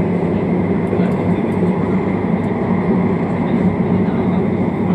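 Light-rail train running at speed, heard from inside the carriage: a steady, even rumble of wheels and motors with no breaks.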